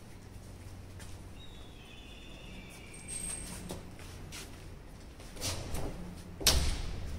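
Faint high bird calls, a few short whistled notes, over a quiet background, with scattered light knocks and one loud thump near the end.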